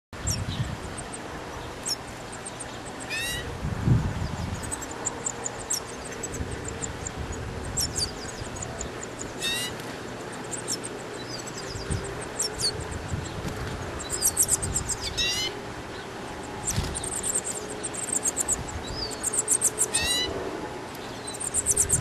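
Nestlings begging in the nest: bursts of rapid, high-pitched cheeps, with a call that slides downward coming back every few seconds. A low thump sounds about four seconds in.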